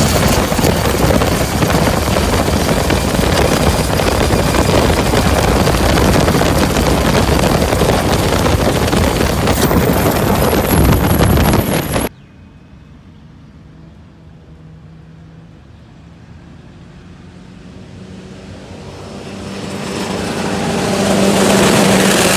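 Long-tail boat engine running at full throttle, loud and noisy from on board. About halfway through it drops suddenly to a distant engine sound that grows steadily louder as the boat comes past near the end.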